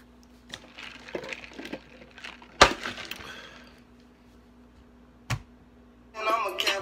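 Handling noise close to the microphone: scattered light taps and rustles, one sharp knock about two and a half seconds in with a brief ringing tail, and another short knock a few seconds later. Music starts just before the end.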